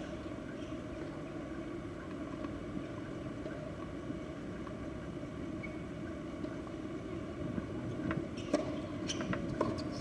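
Steady outdoor background noise between points of a tennis match, with a few short, sharp knocks about half a second apart near the end.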